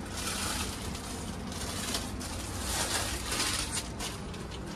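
Rustling and crinkling that comes and goes in two waves, over a low steady hum.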